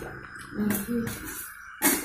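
Metal spoon clinking and scraping on a metal plate while eating, with the sharpest clink near the end.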